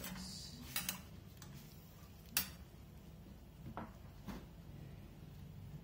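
Metal spoon and slotted spatula clinking against a small stainless steel saucepan while stirring food in it, a few scattered sharp clicks with the loudest about two and a half seconds in.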